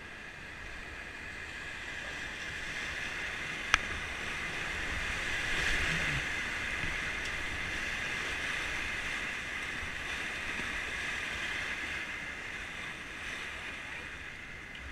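Rushing whitewater of a river rapid, a steady hiss that swells about six seconds in, with a low rumble beneath it. There is one sharp click about four seconds in.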